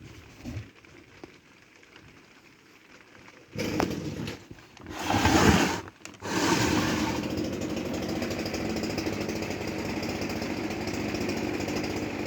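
Kawamoto NF2-150SK well pump's motor starting up about three and a half seconds in with a few uneven surges, then running steadily and loudly. This is the motor noise the seller lists as abnormal.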